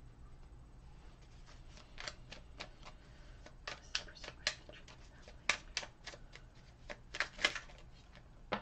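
A deck of oracle cards being shuffled by hand: irregular quick card snaps and clicks, starting about two seconds in.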